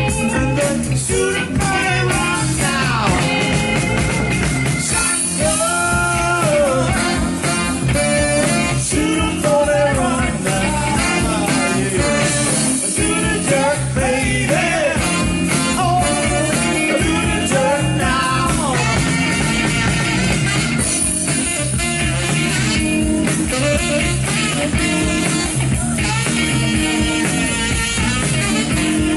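Live soul band playing an up-tempo number: drums and bass keeping a steady beat under guitar, with a melodic lead line that bends and slides between notes.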